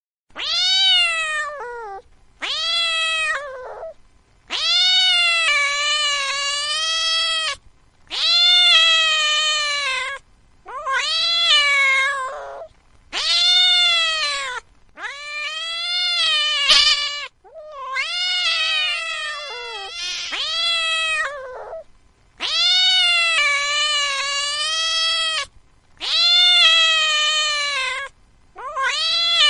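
A cat meowing in long, drawn-out calls, about a dozen in a row with short breaks between them, each call rising and falling in pitch.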